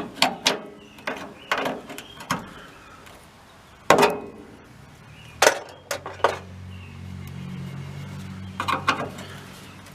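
Sharp metallic knocks, clanks and scrapes as a cut sheet-metal panel in a VW split-window bus's door pillar is worked and slid loose, the loudest knocks about four and five and a half seconds in. A low steady hum comes in during the second half.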